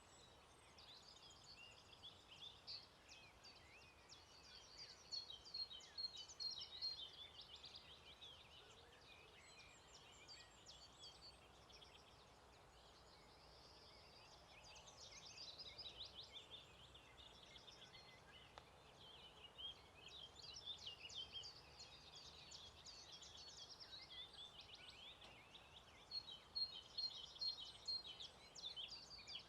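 Dawn chorus at a lakeside: several songbirds singing at once, overlapping chirps and trilled phrases, with rapid runs of repeated notes about a quarter of the way in and again near the end.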